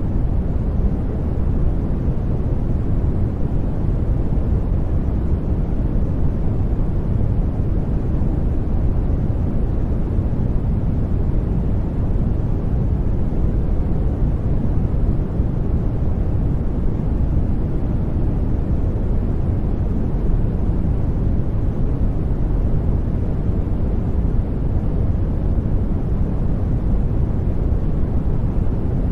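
Steady, unchanging noise for studying: a deep rumbling hiss weighted to the bass, with little treble and no tones or rhythm.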